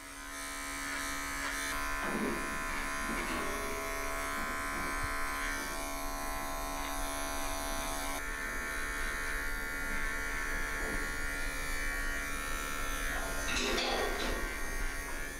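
Electric pet clippers running with a steady buzz as they shave the fur between a cat's paw pads. The buzz grows louder over the first couple of seconds, then holds steady.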